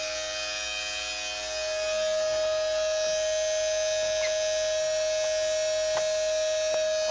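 Small electric water pump with a strainer running steadily as it pumps standing water out of a flooded basement: a constant motor hum, a little louder from about two seconds in.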